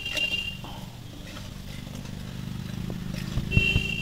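A steady low engine-like hum, like a motorcycle running nearby, grows louder after about two seconds. A few sharp knocks of metal utensils against the wok come near the end.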